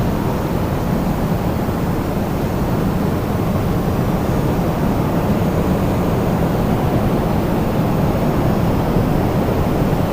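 Strong storm wind blowing steadily, a deep rushing noise that hardly rises or falls.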